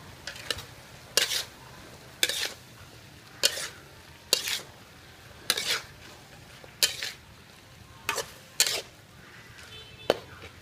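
A metal spatula scraping and tossing vegetables and cow offal in a metal wok, about ten strokes roughly a second apart, over a faint steady sizzle of frying.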